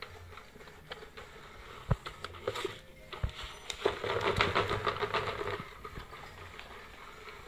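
Battery-powered cat toy with a feather that pops out of its holes: scattered taps and knocks on its plastic shell, then a dense stretch of mechanical whirring and rattling in the middle as a hand presses on it.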